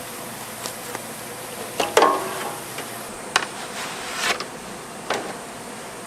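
A handful of short, sharp knocks and clatters over a steady background hiss, the loudest about two seconds in with a brief ring after it.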